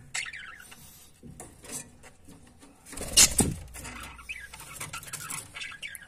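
Budgerigars chirping faintly in short falling peeps, with scattered small clicks and one loud thump about three seconds in.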